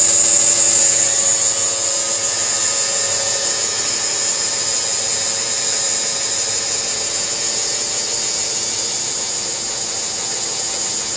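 Micro steel fiber cutting machine running steadily, with a continuous high-pitched whir. A lower hum underneath fades out about three seconds in.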